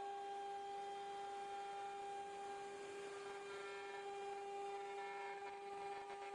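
Spindle of a five-axis CNC router running with a steady whine while the head works over a moulded plywood part. Fainter higher tones come and go over it about halfway through.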